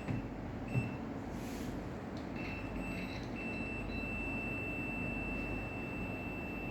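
A multimeter's continuity beeper testing a microwave oven's heater element. It gives a few brief beeps, then a steady unbroken beep from about halfway in as the probes make contact, showing continuity through the element.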